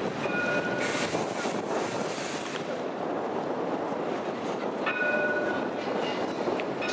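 Edinburgh tram, a CAF Urbos 3 light-rail car, running along street track over steady traffic noise. A short high two-note tone sounds near the start and again about five seconds in.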